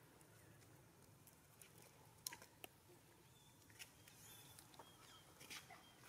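Near silence, with a few faint clicks and soft splashes from long-tailed macaques wading and drinking at the edge of a pool.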